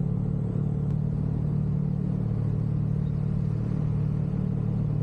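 Steady engine and road drone of a BMW M3 cruising at constant speed, heard from inside the cabin, with an even low hum that holds at one pitch.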